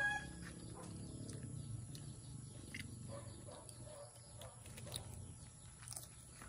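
A rooster's crow tails off at the very start, then faint clicks and smacks of seafood shells being pulled apart and chewed by hand, over a low steady background hum.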